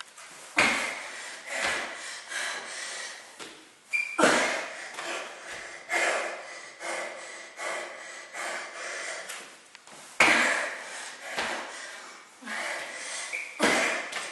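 A woman breathing hard through burpees, with sharp, forceful puffs of breath, the strongest about every three to four seconds and smaller ones between.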